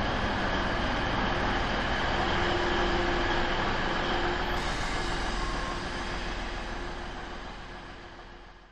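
DB Class 612 diesel multiple unit pulling into the station past the platform, a steady running noise from the moving train. The sound fades away over the last few seconds.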